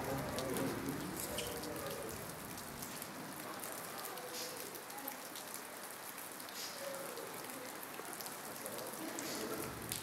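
Rain falling on a wet concrete path and puddle, an even hiss of rain with many separate drops ticking.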